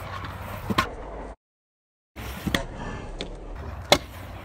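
Stunt scooter wheels rolling on a concrete skatepark bowl, with a few sharp clacks of the deck and wheels hitting the concrete, the loudest nearly four seconds in. The sound cuts out completely for under a second about a second and a half in.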